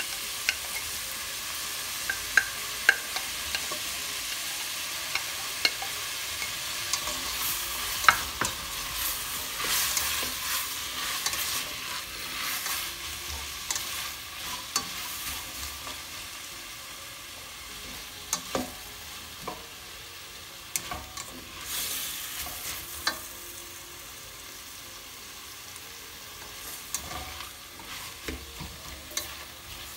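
Diced carrots and bell pepper sizzling in a stainless steel pan, stirred with a slotted spatula that scrapes and clicks against the pan. The sizzle is louder in the first half and settles lower from about halfway.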